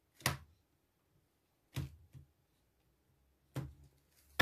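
A deck of oracle cards handled by hand: several short, sharp clicks of cards being tapped and snapped, a second or two apart.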